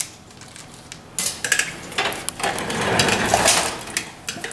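Scissors cutting heat-shrink tubing: a quick run of snips and rustling handling, starting about a second in and loudest around three seconds in.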